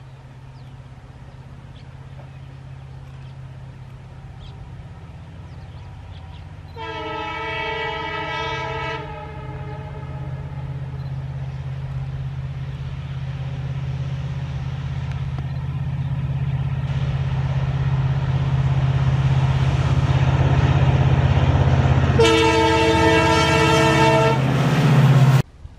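EMD WDP-4 diesel locomotive hauling a passenger train, its engine drone growing steadily louder as it approaches. It sounds its horn twice, in blasts of about two seconds, about a quarter of the way in and again near the end, when it is loudest.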